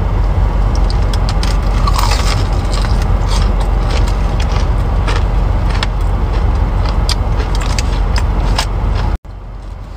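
Close-up chewing and crunching of fried chicken tenders, with crisp clicks and paper rustling, over a steady low rumble inside a car. The sound drops abruptly to a quieter hum near the end.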